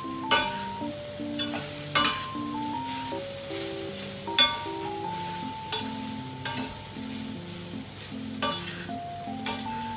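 Food sizzling and frying in a pan, a steady hiss, with several sharp taps of a utensil against the pan as it is stirred. Soft piano-like music plays underneath.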